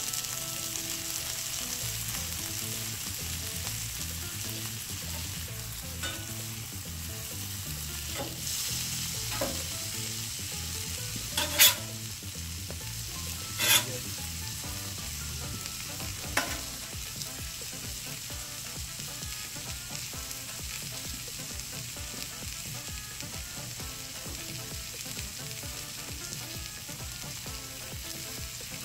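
French toast slices and chicken sausage patties sizzling steadily on a hot Blackstone flat-top griddle. Midway there are a few sharp clinks of a metal spatula against the griddle plate as a slice is lifted to check underneath.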